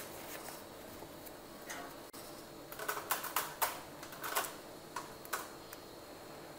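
Faint, irregular clicks and taps, bunched in the middle stretch: metal multimeter test probes being set against wire terminals and handled while a wire is checked for a break.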